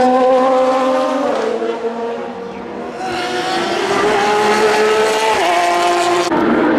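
Race car engines at full throttle passing in turn. The first car's note climbs and steps down with an upshift about a second in, then fades. A second car comes in about three seconds in and upshifts about two seconds later.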